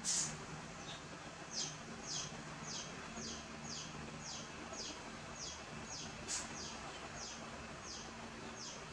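A series of short, high, falling chirps repeating about twice a second, with louder ones near the start and about six seconds in.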